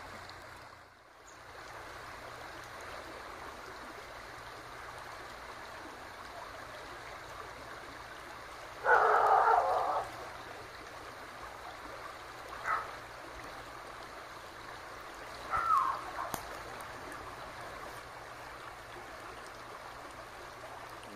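Shallow river running steadily, its rippling water giving an even rushing hiss. About nine seconds in, a louder noise cuts across it for about a second, and two shorter, fainter sounds follow a few seconds later.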